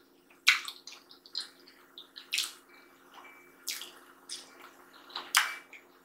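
Wet eating sounds as sadza and chicken stew are eaten by hand: a string of short, sharp, irregular smacks and clicks from the food and the mouth, over a faint steady hum.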